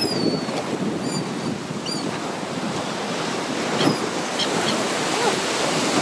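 Choppy sea waves washing and breaking into foam, with wind buffeting the microphone. A few short, high gull calls sound near the start, about 1 and 2 seconds in, and around 4 seconds in.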